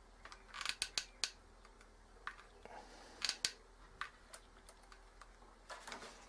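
Scattered sharp small clicks and taps, about a dozen at irregular intervals, from hands working a hot glue gun and the servo lead on a model helicopter's tail boom.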